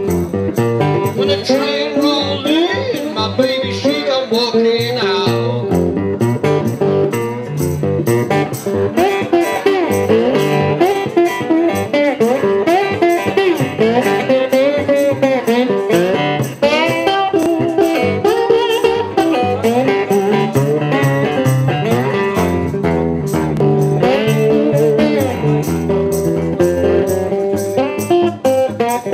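Resonator guitar played solo in a driving blues style, a repeating rhythmic figure with notes gliding up and down in pitch.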